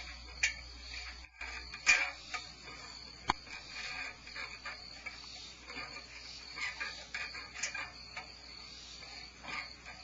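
A steady night chorus of crickets trilling outside a barn owl nest cavity. A few sharp scratches and clicks sound as the barn owl shifts on the cavity floor, the loudest about two seconds in and another about a second later.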